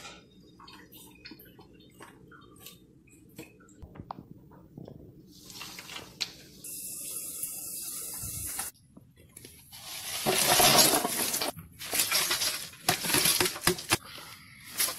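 Light clicks and knocks of food scraps and eggshells dropped into a plastic coffee canister. From about ten seconds in come two louder bursts of rushing noise.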